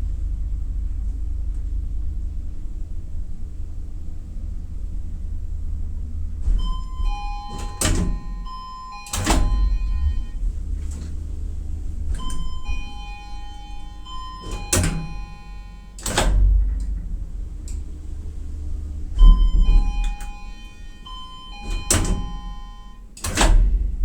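Elevator: a steady low hum, with three groups of short chime-like tones and sharp clunks coming in about six seconds in, again around twelve seconds, and near the end.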